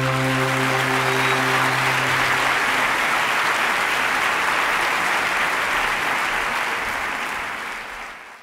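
Audience applauding at the end of a performance, with the string orchestra's last held chord dying away under the clapping in the first two or three seconds. The applause fades away near the end.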